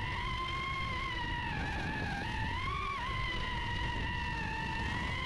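Darwin FPV CineApe 35 cinewhoop's brushless motors and ducted propellers whining steadily, the pitch wavering up and down with throttle and peaking about three seconds in, over a low rumble of wind and prop wash.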